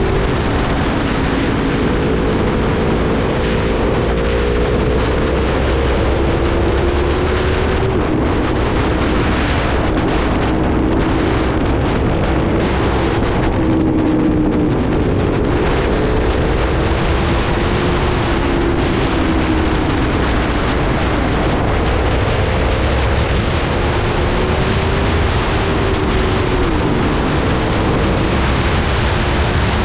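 Aprilia motorcycle engine pulling under acceleration, mixed with heavy wind noise on the microphone; the engine pitch climbs slowly and drops sharply at gear changes, once near the end as it shifts from third to fourth.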